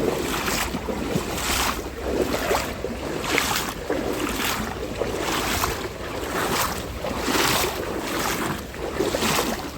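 Legs wading through a shallow river, each stride a swish and splash of water, about one step a second.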